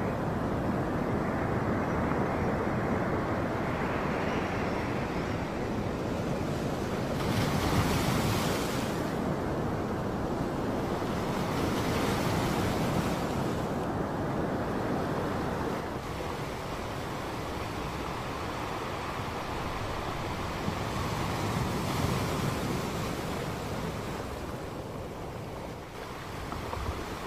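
Ocean surf washing up on a sand beach, with wind buffeting the microphone. The waves swell louder and ease off several times.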